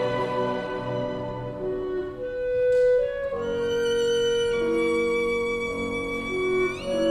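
Solo violin playing a slow, lyrical melody over a bowed-string accompaniment, holding a long note and then sliding up to a higher one near the end.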